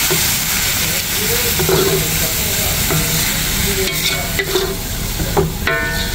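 Julienned ginger, galangal, shallots and lemongrass sizzling in hot oil and a little water in a wok, stirred and pushed around with a wooden spatula.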